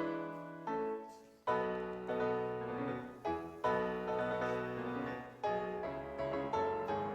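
Background solo piano music; the notes fade away, falling nearly silent about a second in before a loud new phrase comes in.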